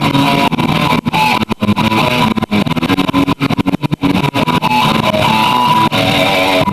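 Guitar being played: a quick run of picked notes and chords that cuts off suddenly at the end.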